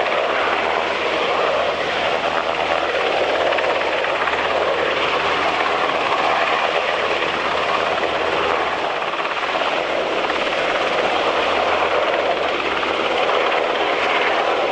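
Mitsubishi UH-60J rescue helicopter in flight: the steady noise of its four-blade main rotor and twin turboshaft engines, with no break or change in level.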